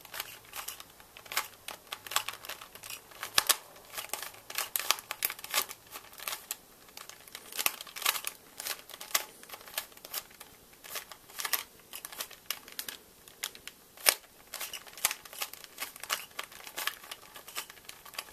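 Rubik's cube being turned quickly by hand during a solve that turns only two faces: a fast, irregular run of plastic clicks and rattles.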